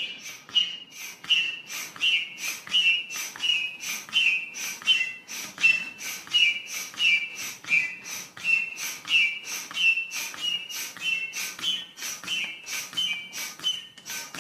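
Foot pump inflating an exercise ball in steady, even strokes, about two to three a second, each stroke giving a short high whistle of air through the hose and valve.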